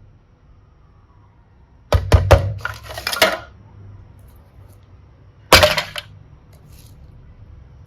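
Small hard objects knocking and clattering against a container: a quick run of knocks and rattling about two seconds in, then a single sharp knock near the middle.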